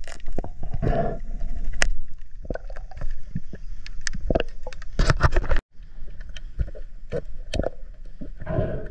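Underwater handling noise of spearfishing gear heard through an action-camera housing: a string of sharp clicks and knocks from hands on the spear shaft and a wooden speargun, over a low water rumble, as a speared mangrove snapper is brained. Two longer rushing sounds come near the start and near the end, and the sound drops out completely for a moment just past halfway.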